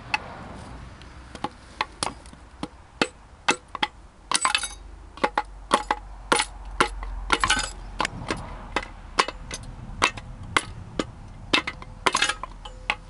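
Repeated hammer blows on metal, about two a second with a few quick rattling flurries, each with a short metallic ring: pistons being knocked out of the bores of a stripped XUD diesel engine block.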